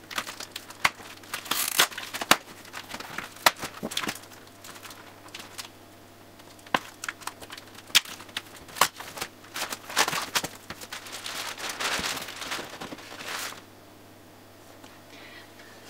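Packing tape on a cardboard box being cut with scissors and pulled loose, a run of sharp snips and crackles, then plastic packaging rustling and crinkling for a few seconds as the box is opened.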